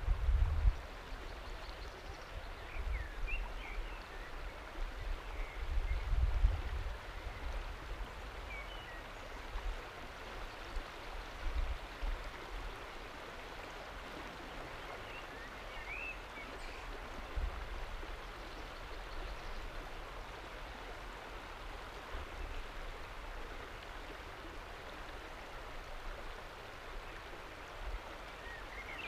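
River water rushing and lapping over a rock shelf, a steady hiss, with gusts of wind buffeting the microphone at the start and again around five to seven seconds in. A few faint high chirps come through now and then.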